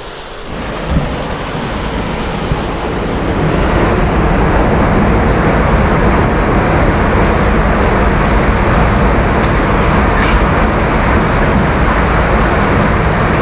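Water rushing through a culvert freed of a beaver-dam blockage, a loud steady rush that swells over the first few seconds and then holds. The flow is strong.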